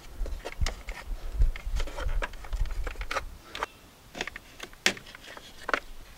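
Plastic trim tabs and clips clicking and knocking as a plastic cowl panel is pried loose with a flathead screwdriver and handled. The sharp clicks come irregularly, with low thuds in the first half.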